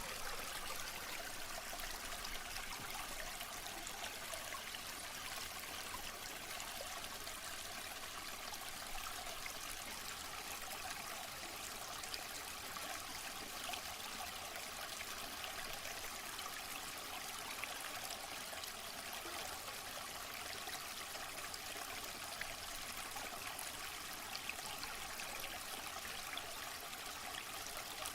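Waterfall: falling water splashing steadily, an even rushing hiss with small crackling splashes.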